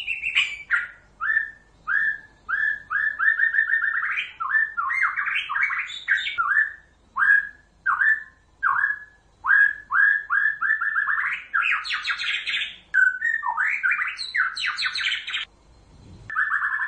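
White-rumped shama singing: a varied run of whistled notes, many sliding downward, mixed with fast trills and rising phrases. The song stops about a second before the end, and guitar music comes in.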